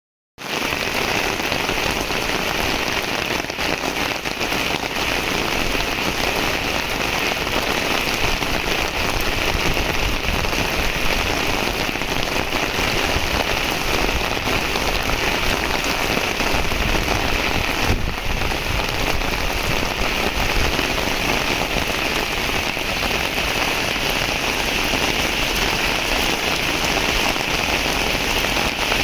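Heavy rain falling, a steady dense hiss of drops.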